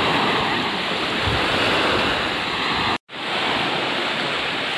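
Sea waves washing onto the shore, a steady rushing noise mixed with wind on the microphone. It cuts out for an instant about three seconds in, then carries on.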